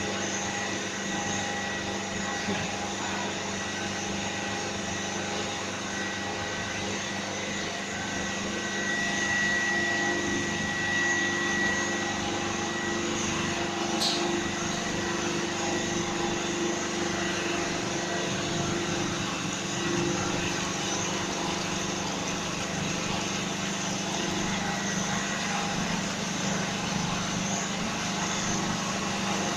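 PVC pipe-making machine running steadily: a constant mechanical hum with a thin high whine, and a single sharp click about halfway through.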